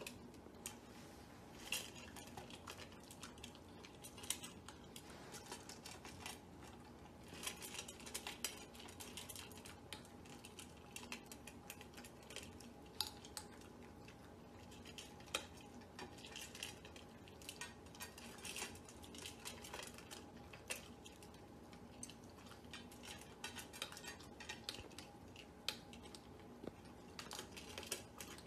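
Two puppies eating dry food from their bowls: a steady stream of irregular small clicks, crunches and clinks as kibble and muzzles knock against the bowls, one of them metal.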